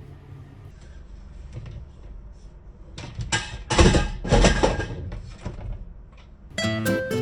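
Knocks and rustling of household things being handled, loudest in a cluster of bursts mid-way. Acoustic guitar background music comes in near the end.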